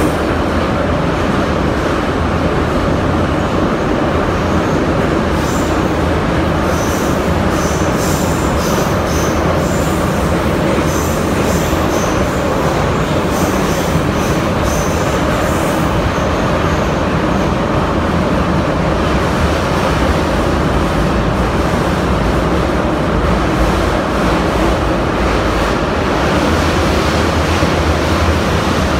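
Loud, steady running noise of an 81-717/714 'Nomernoy' metro train, heard from inside the passenger car as it travels through a tunnel: wheels on rails, with short high squeaks coming and going in the first half.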